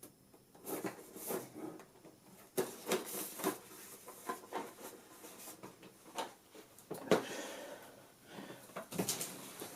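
Boxed computer parts being handled: a run of irregular knocks, taps and rustles of cardboard and packaging.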